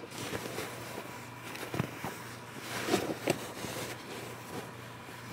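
Handling noise from a camera being gripped and repositioned: a few soft knocks and rustles, the loudest about three seconds in, over a faint steady hum.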